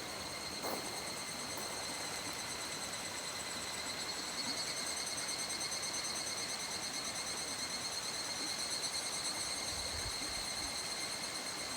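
Insects shrilling steadily in a high, fast-pulsing chorus that swells about four seconds in.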